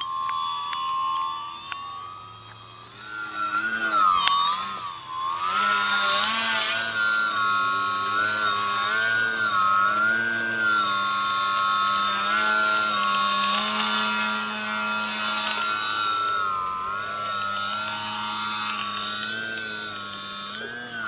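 Electric motor and propeller of a DW Foamies Juka 40" foam aerobatic RC plane, a whine that keeps rising and falling in pitch as the throttle is worked. It drops away briefly a couple of seconds in, then comes back up.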